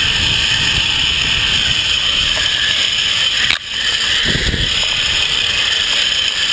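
Zipline trolley pulleys running fast along the steel cable, a loud steady whirring hiss, with wind rumbling on the microphone. There is a brief dropout about halfway through.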